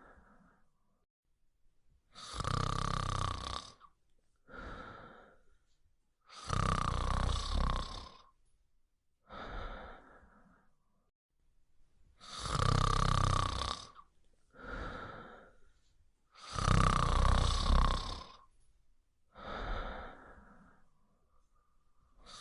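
Dog snoring loudly in its sleep: a long snore about every four seconds, each followed by a shorter, softer breath.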